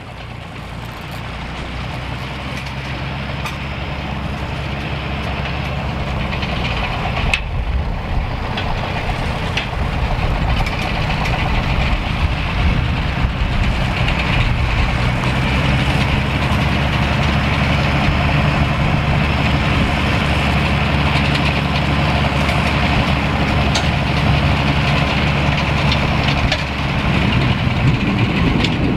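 Farm tractor engines running steadily at close range, growing louder over the first ten seconds. A single metallic clank about seven seconds in.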